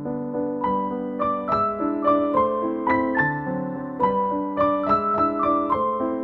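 Background piano music: a gentle tune of struck notes over held chords, with a higher melody line coming in about half a second in.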